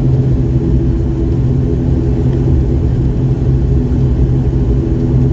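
Steady jet engine hum and rumble inside an airliner cabin while the plane taxis before take-off.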